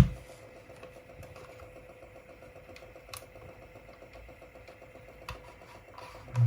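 Sony WM-D6C cassette Walkman's tape transport running in play: a loud click at the start, then a steady mechanical whir with a faint hum.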